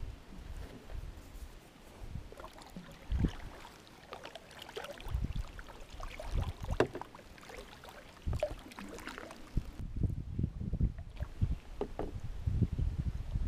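Irregular knocks and clatter of handling inside a wooden cedar-strip canoe, with scattered low thumps.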